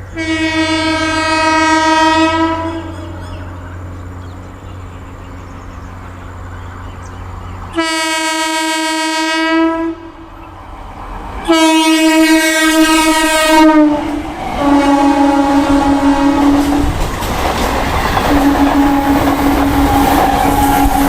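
Indian Railways train's air horn giving three long blasts as the train approaches. The train then runs past close by, wheels rumbling and clattering over the rail joints, while the horn keeps sounding at a lower pitch that drops as the train goes past.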